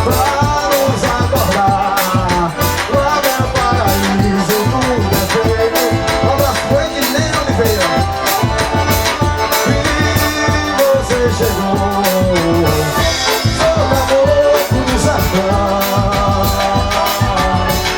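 Live forró music: an instrumental passage with the accordion (sanfona) carrying the melody over a steady, fast percussion beat and bass.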